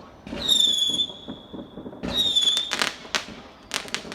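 Fireworks going off: a high whistle starts about a third of a second in and holds for over a second, a second shorter whistle follows at about two seconds, and sharp crackling bangs come in the second half.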